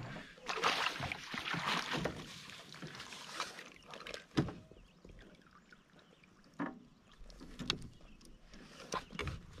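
Splashing and dripping water as a fish-laden landing net is lifted out of the lake, then a few scattered knocks as the net and fish are handled on the kayak.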